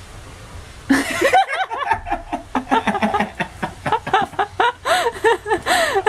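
Hearty human laughter starting about a second in: a fast string of laughs, each rising and falling in pitch.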